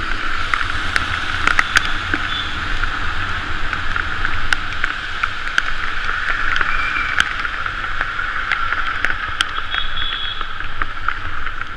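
Bicycle tyres hissing over wet, rain-soaked asphalt while riding, with a steady low rumble underneath and scattered sharp ticks.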